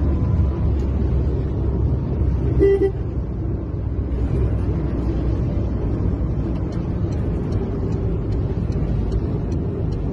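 Steady low rumble of a car driving, heard from inside the cabin, with one short car-horn toot about two and a half seconds in.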